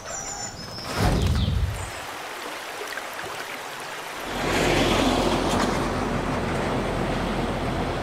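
Brief bird chirps and a short loud burst of low rushing noise about a second in, then from about halfway a loaded dump truck's engine running steadily with a low hum and road noise as it drives along a dirt road.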